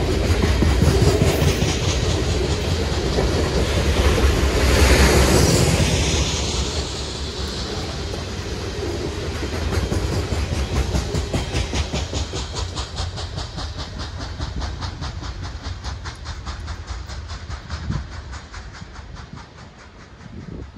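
Hopper cars of a CSX coal train rolling past over a grade crossing, wheels rumbling and clacking over the rail joints. The sound is loudest in the first six seconds and fades once the last car passes about ten seconds in, while a rapid, evenly spaced ringing from the crossing bell carries on.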